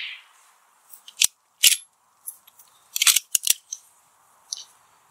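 The tail of a suppressed shot from a Sig Sauer Cross 6.5 Creedmoor rifle dies away at the start. It is followed by a string of sharp metallic clicks, bunched about three seconds in, as the bolt is worked to chamber the next round. Insects buzz faintly and steadily underneath.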